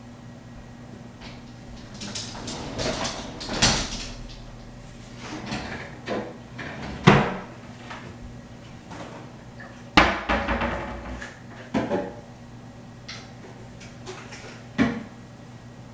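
Household knocks and clunks, such as doors or cupboards being opened and shut: about five separate ones, the loudest about seven and ten seconds in, over a steady low hum.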